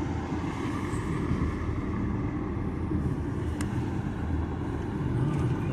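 Steady road and engine noise of a moving car, heard from inside the cabin, with a single short click about three and a half seconds in.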